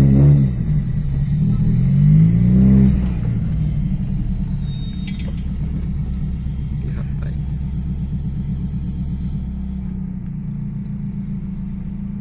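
Chevrolet Kadett's straight-piped exhaust heard from inside the cabin: the engine revs up and back down twice in the first three seconds, then runs steadily at low revs.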